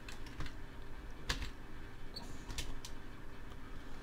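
A handful of short, sharp clicks from a computer mouse and keyboard during desk work, the loudest a little over a second in, over a faint steady room hum.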